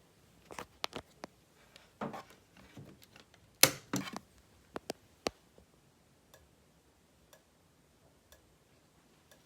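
A few irregular clicks and knocks, then faint regular ticks about once a second from a System Sensor SpectrAlert Advance strobe, the small click it makes with each flash.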